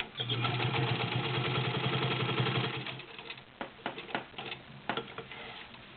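Good Housekeeper Class 15 clone straight-stitch sewing machine running at speed for about three seconds, sewing through ten layers of cotton: its electric motor hums under a fast run of needle ticks. It then stops, and a few separate clicks and knocks follow.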